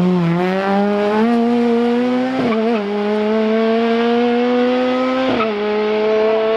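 Rally car engine passing close by, its pitch dropping as it goes past, then pulling away with the pitch climbing slowly through the gears, with sharp upshifts about two and a half and five seconds in.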